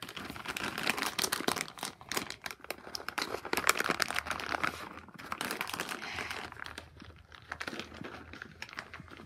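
Crinkling and rattling of handled material, a dense run of quick sharp clicks that thins out near the end.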